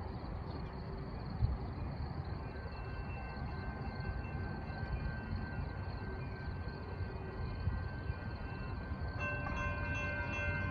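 ACE commuter train rolling into the station with a steady low rumble, over which high metallic ringing tones sound and grow stronger about nine seconds in.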